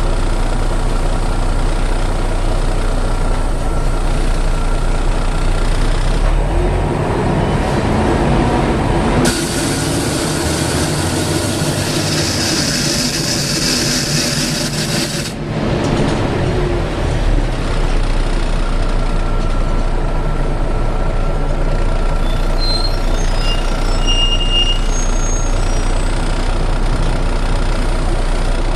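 Volvo B7TL double-decker bus's six-cylinder diesel engine running, heard from inside the bus, climbing in pitch as the bus pulls away. About nine seconds in, a loud hiss of air starts sharply, lasts about six seconds and cuts off abruptly.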